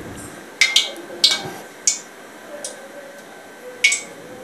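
Several light metal clinks with brief ringing, spread irregularly: a steel slotted spoon knocking against a metal kadai of heating oil.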